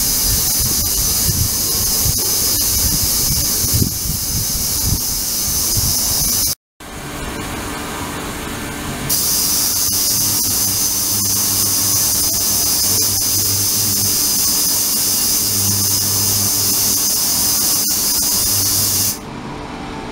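Ultrasonic cleaning tank running: a steady high hiss with a low hum beneath it, broken by a short gap about a third of the way in. The hiss cuts off near the end, leaving only the hum.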